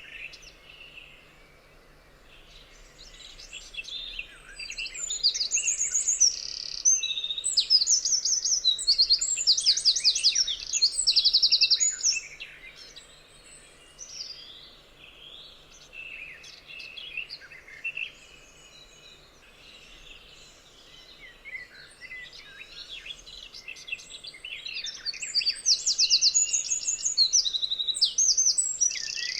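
Several forest songbirds singing and chirping. Two spells of loud, rapid, high trilling phrases stand out, one from about five to twelve seconds in and one near the end, with softer chirps and calls between them.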